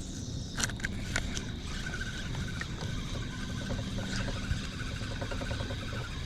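Steady low rumble, like a distant engine, with a thin steady high tone and a couple of sharp clicks in the first second or so.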